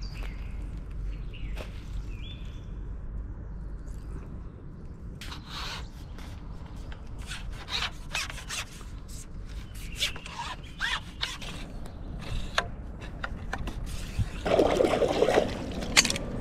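Rubbing, scraping and clicking noises of something being handled, over a steady low rumble, with a louder stretch of scraping near the end.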